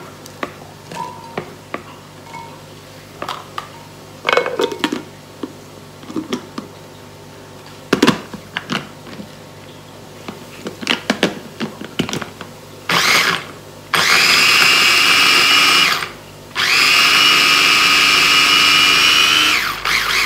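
Electric mini chopper chopping peeled garlic cloves. First come clinks and knocks as the cloves go into the plastic bowl and the motor top is fitted. Then the motor whines in a brief burst, followed by two longer steady runs with a short gap between, and winds down near the end.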